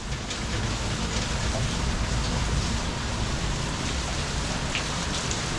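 Heavy rain falling steadily, a dense even hiss with scattered patter of drops on surfaces.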